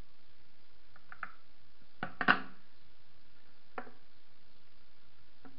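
Several short wooden knocks and clicks as a homemade wooden tool is worked against a ceramic toilet cistern and its plastic fill valve, the loudest a little over two seconds in.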